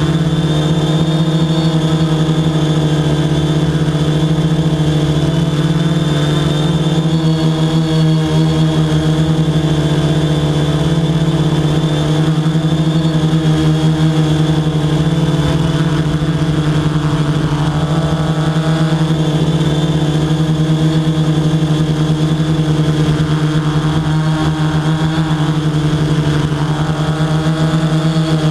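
Quadcopter drone's propellers humming steadily in flight, one unbroken pitched tone with overtones, picked up by the drone's own microphone.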